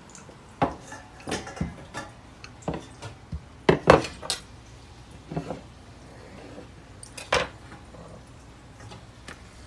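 Kitchen utensils clinking and knocking on a countertop: a string of short, irregular knocks, the sharpest about four seconds in and again past seven seconds.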